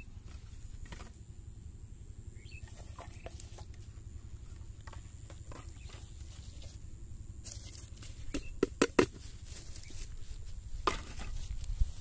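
Plastic bottles and a plastic basket being handled: scattered light clicks and taps, then a quick run of louder plastic clatters a little past the middle and one more knock near the end, over a steady low rumble.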